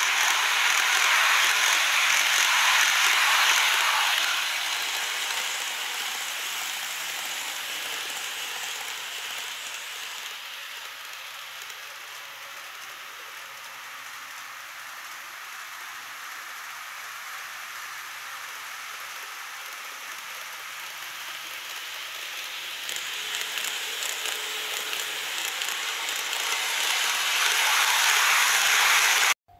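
KATO model trains, a 383 series Wide View Shinano and a 381 series Panorama Shinano, running on elevated track: a steady rolling hiss of wheels and motors. It is loud for the first few seconds, quieter in the middle, swells again near the end and cuts off abruptly.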